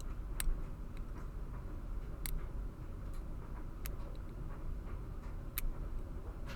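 Small sharp clicks from a short hook working pin 5 of a Master Lock 410 LOTO padlock under tension: four distinct ticks about two seconds apart, with a few fainter ones between them, over a low steady hum.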